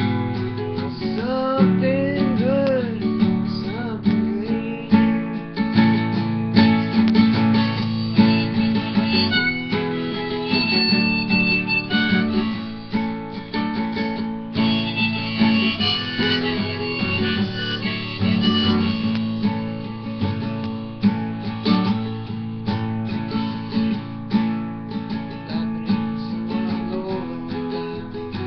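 Classical guitar played continuously, strummed chords mixed with picked notes, with a wavering higher melody line above it at times.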